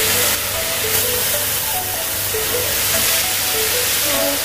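Raw ribeye steaks sizzling steadily as they go into hot oil in a non-stick frying pan, with background music playing a simple melody over the hiss.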